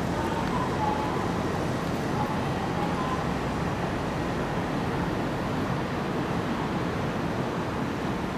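Electric commuter train pulling out of a station: a steady rumble of wheels and running gear, with a faint whine in the first few seconds.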